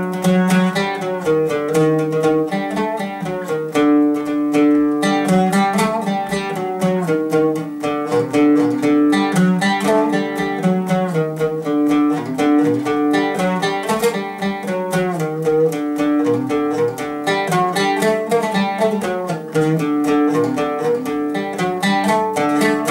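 Solo oud plucked in a quick, busy melody of many rapid notes.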